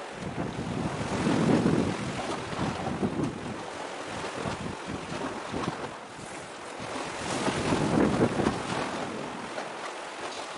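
Wind buffeting the microphone, swelling in gusts about a second and a half in and again around eight seconds, over a steady rush of wind and sea.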